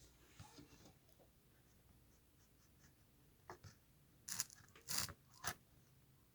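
A few short scrapes and clicks, the loudest two about four and five seconds in, as small tools or parts are handled on an opened laptop.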